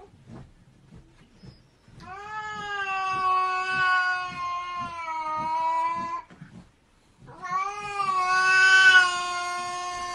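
Cat yowling in two long, drawn-out calls, each several seconds long and steady in pitch, the second louder.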